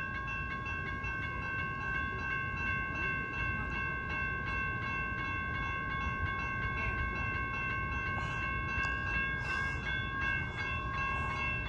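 Railroad grade-crossing warning bell ringing steadily and continuously, over the low rumble of an approaching train.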